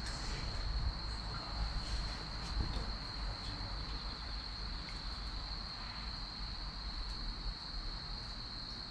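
Wood fire crackling with scattered small pops of burning firewood, under a steady high trill of crickets.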